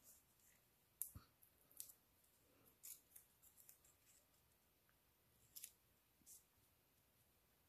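Near silence broken by a handful of faint, crisp ticks and crackles: vellum butterflies being handled and pressed onto a paper card by hand.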